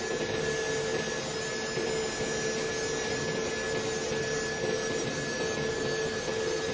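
Electric nail drill (e-file) running at a steady high pitch while its bit files a gel-coated fingernail, over a constant rushing hiss.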